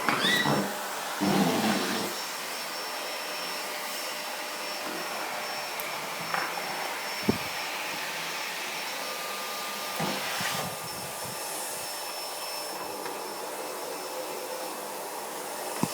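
Vacuum cleaner running steadily, with a few louder knocks and bumps: near the start, about six and seven seconds in, and around ten seconds in.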